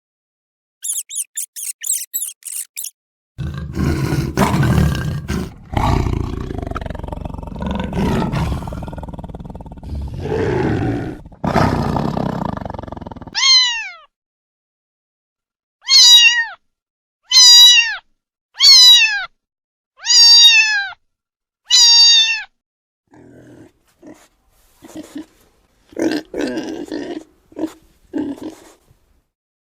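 A string of different animal calls cut one after another. Quick high squeaks come first, then about ten seconds of deep, rough calling. Five loud calls follow, each falling in pitch, and softer low grunts close it out.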